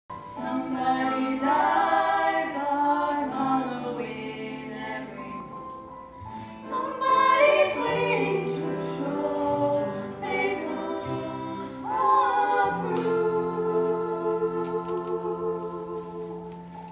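Female voices singing a stage-musical number in harmony over held accompaniment, in several short phrases, closing on a long sustained chord for the last few seconds.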